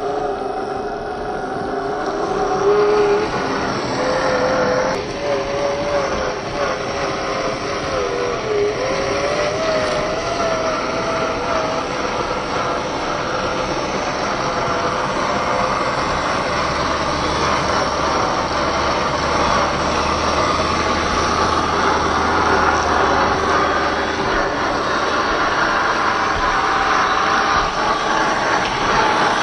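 Traxxas TRX-4 1/10-scale RC crawler driving off-road. Its electric motor whines, rising and falling in pitch with the throttle, over a steady noise of gears and tyres on the ground.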